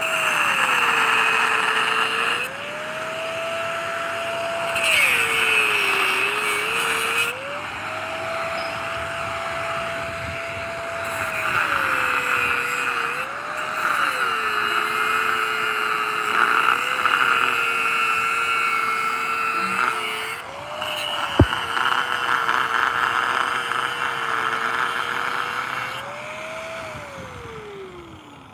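Electric angle grinder cutting steel rebar stubs projecting from a concrete slab. The motor whine drops in pitch each time the disc bites into the rod and rises again as it eases off, over a harsh grinding hiss, with one sharp click about two-thirds through. Near the end the grinder is switched off and winds down.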